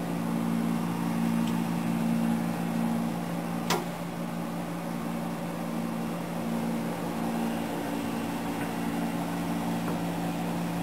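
A steady low machine hum made of a few close low tones, with a single sharp click a little under four seconds in.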